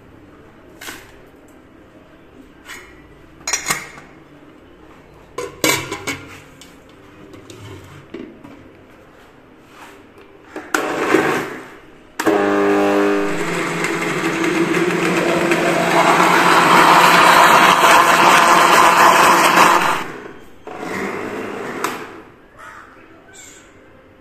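Countertop electric blender with a steel jug switched on about twelve seconds in. It runs loud and steady for about eight seconds blending juice, then cuts off. Before it come scattered knocks and clinks of the jug and lid being handled.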